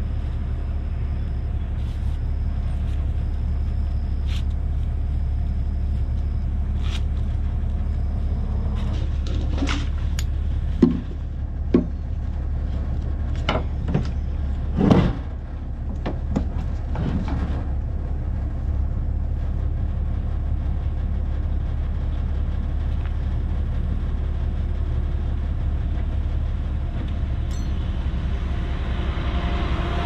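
Steady low rumble of traffic on a highway close by, with a few sharp knocks and clatters about a third and halfway through as a wooden hive box and strap are handled near the microphone. A vehicle approaches at the very end.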